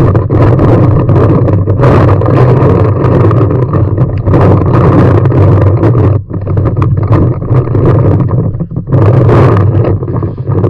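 Loud low rumble of wind and handling noise on the microphone of a camera worn by a paintball player, with many irregular short knocks and pops.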